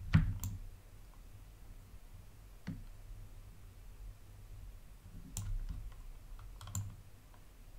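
Computer mouse clicking a few times over a low room hum: one sharp click with a dull knock right at the start, a single click near the three-second mark, and a short cluster of clicks around five to seven seconds in.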